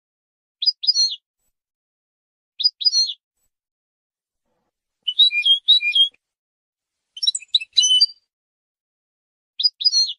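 European goldfinch song from a competition training tape: short, quick phrases of bright twittering notes, one about every two seconds with silence between them. The busiest phrases come around the middle of the stretch.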